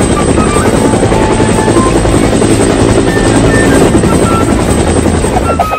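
Helicopter rotor sound effect, a steady fast chopping, with light background music notes under it.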